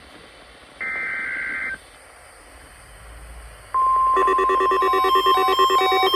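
NOAA Weather Radio SAME header data burst lasting about a second, then a lull, then the 1050 Hz warning alarm tone starting a little before 4 s in, marking a required weekly test. About half a second later a bank of weather alert radios sound their alarms together: overlapping repeating beeps of different pitches, louder than the burst.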